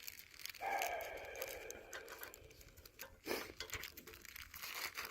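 Plastic packaging crinkling and tearing as a small package is worked open one-handed: a stretch of rustling about half a second to two seconds in, a short rip a little after three seconds, and small clicks and rustles between.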